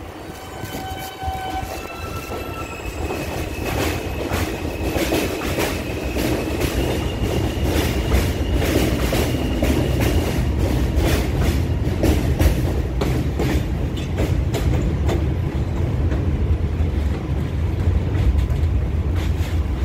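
R160A New York City subway train moving past the platform: its motors whine in a few stepped tones at first, then the rumble and the rapid clatter of wheels over rail joints build up and stay loud.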